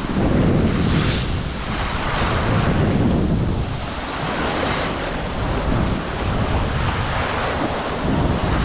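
Strong wind buffeting the microphone over the rush of water along a sailboat's hull, sailing fast at about 9 knots. The noise swells and eases every second or two.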